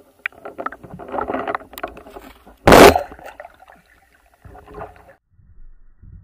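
Underwater sound at a diver's camera among lake weeds: scattered clicks and crackling, with one loud, short rush of noise a little before halfway, followed by quieter low rumbling.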